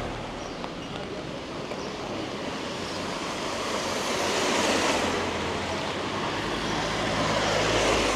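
Rushing street noise on a wet, windy day, swelling twice, about halfway through and again near the end, over a low rumble.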